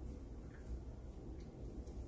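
A person drinking soda from a can: a few faint sips and swallows over a low steady hum.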